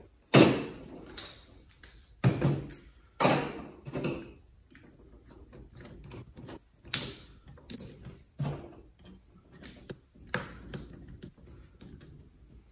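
Clicks, clacks and knocks of a sanding mandrel being changed in a cordless drill's chuck and small tools being picked up and set down on a table, with a few louder knocks among many small ticks.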